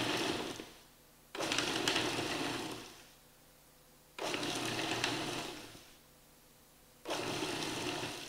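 Food processor motor run in short pulses, each starting sharply and winding down after about a second and a half: one pulse dies away within the first second, then three more follow about every three seconds. The blade is cutting cold butter cubes into flour and brown sugar until the mixture turns sandy.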